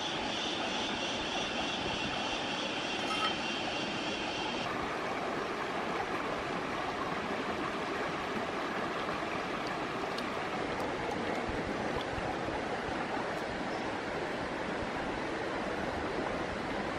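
Shallow rocky stream running and splashing steadily, with hands rinsing squid in the water. A steady high-pitched buzzing is heard over it for the first few seconds and cuts off suddenly.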